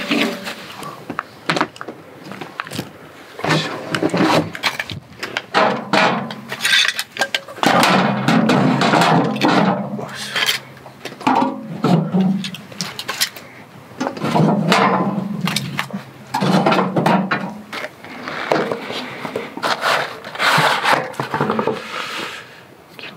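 Split kindling sticks being knocked and stacked inside a metal wood stove: an irregular run of wooden clatters, knocks and scrapes against the firebox.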